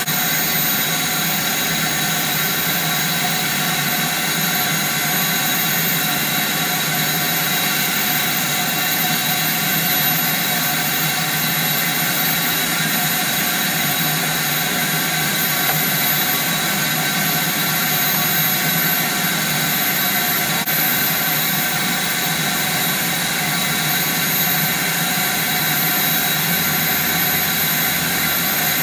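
Shop vacuum running steadily, its hose sucking dirt and debris out of a sliding glass door's aluminum bottom track.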